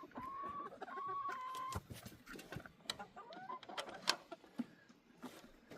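Chickens: a steady high note held twice, each for under a second, followed by scattered soft clucks and light clicks.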